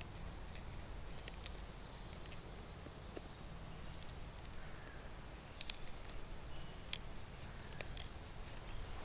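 Knife blade scraping bark off a hazel stick: faint, irregular scrapes with a few sharper clicks in the second half, over a steady low rumble.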